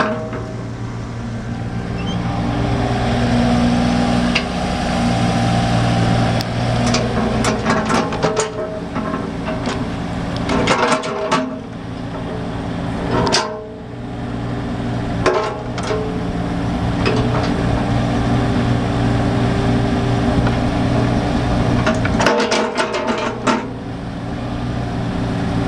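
Kubota KX91-3 mini excavator's three-cylinder diesel engine running under hydraulic load as the boom, arm and bucket move and the machine swings, its pitch and level shifting with the load. Sharp knocks from the working equipment come in clusters several times.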